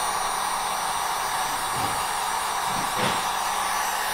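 Electric heat gun running steadily, its fan blowing hot air with an even rushing hiss over a faint low hum.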